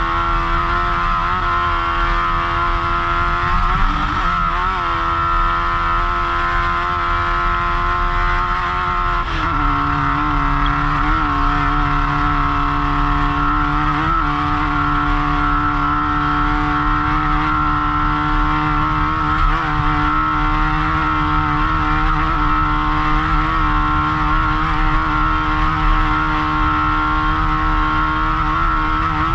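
Off-road race car engine running hard at high, steady revs, heard from the driver's helmet. The pitch drops about nine seconds in as the revs fall, then holds steady again.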